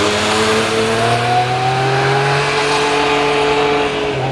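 Motorcycle engine accelerating, its pitch rising steadily for about three and a half seconds, then dipping near the end.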